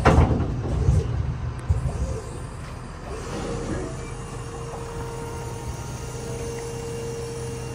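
A pickup truck idling, with heavy clunks and rumbling in the first two seconds as it is eased up to a gooseneck hitch, then a steady mechanical whine joining from about three seconds in over the engine's low hum.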